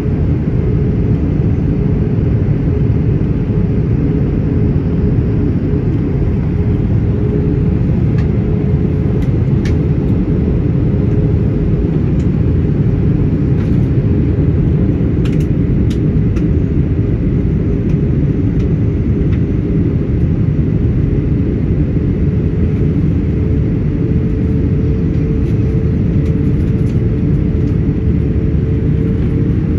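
Airbus A321-200 cabin noise: a loud, steady low rumble of engines and airflow with a steady hum that rises slightly in pitch near the end.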